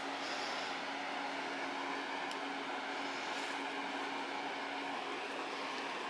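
Steady background hiss with a low hum that stops about five seconds in.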